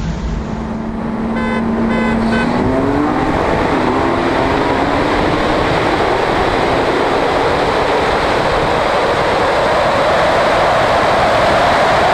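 High-horsepower street car accelerating hard: the engine holds a steady note for about two seconds, then climbs in pitch as it pulls, under loud rushing wind and road noise.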